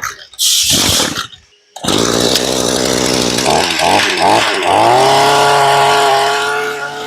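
Echo 22 brush cutter's small 22 cc two-stroke engine starting up after a short rasping noise: it catches about two seconds in, revs up and down a few times, then settles into steady running.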